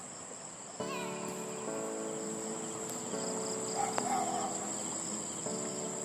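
Crickets trilling: one steady high-pitched tone. Underneath it, lower steady tones start and stop every second or so.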